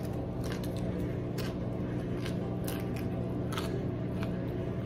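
Crisp fried tostada shell crunching as it is bitten and chewed, in irregular crunches, over a steady low hum.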